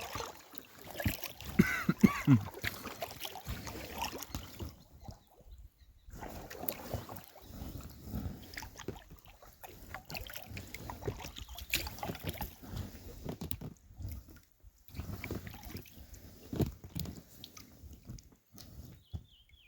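Paddles dipping and splashing as a small boat, likely a packraft, is paddled along a stream, with irregular knocks and sloshing water and brief pauses between strokes.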